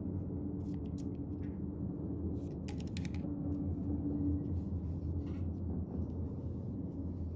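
Light clicks and scrapes of metal lightsaber hilt parts being handled as the crystal chamber is slid out of the hilt, with a quick run of clicks about three seconds in, over a steady low hum.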